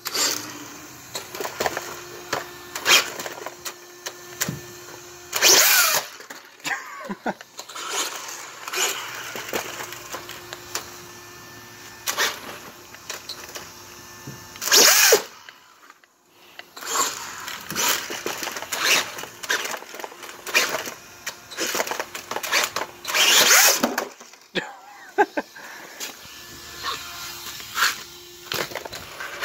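Brushless RC buggy motor (2430-size, 8200 kV on a 3S LiPo) revving in repeated short bursts, its high whine rising and falling, with the tyres spinning on concrete in burnouts. Three bursts are much louder than the rest.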